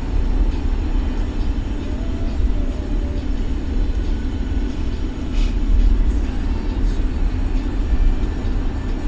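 Car driving at speed: steady low rumble of road and engine noise.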